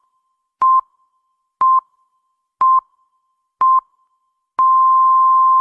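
Electronic countdown beeps: four short, identical pure beeps one second apart, then a longer beep held for about a second near the end, like the pips of a radio time signal.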